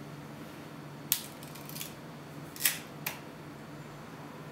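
Pentax ME 35mm SLR camera clicking as it is handled: a sharp click about a second in, followed by a run of faint ticks, then two more clicks a little past halfway.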